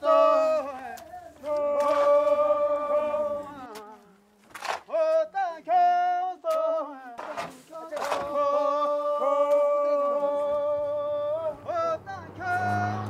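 Unaccompanied singing voice: long steady held notes, one from about a second and a half to three and a half seconds in and another from about eight to eleven and a half seconds in, with shorter sung syllables between them.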